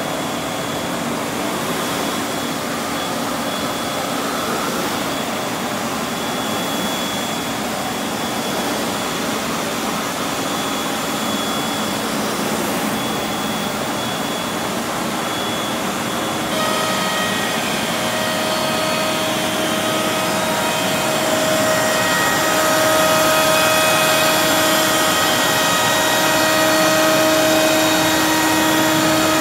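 MultiCam Digital Express CNC router running: a steady rushing noise with a faint high whine. A bit past halfway, several steady whining tones come in and it gets louder as the spindle works the printed board.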